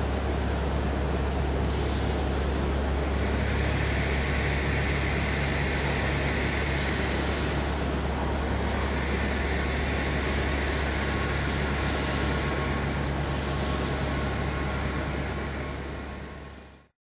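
AnsaldoBreda V250 (Fyra) high-speed electric train moving slowly along the platform: a steady low hum under a hiss that swells and fades a few times. The sound fades out about a second before the end.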